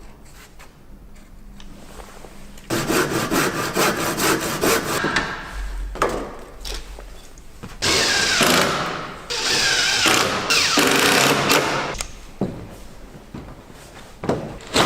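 Power saw cutting through a timber roof batten, in two spells of a few seconds each, removing a 170mm section.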